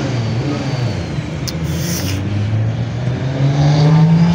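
A car engine running steadily at low revs, then its pitch climbing gradually over the last second or so as the revs rise. A short hiss sounds about halfway through.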